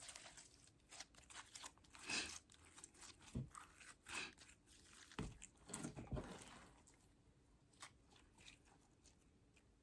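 Slime being squished and worked by hand, giving a run of faint sticky clicks and squelches that thins out after about seven seconds.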